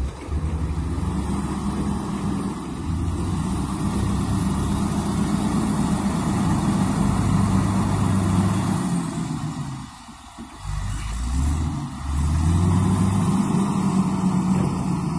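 Motor grader's diesel engine running under load, a steady low drone that drops away briefly about ten seconds in and then comes back.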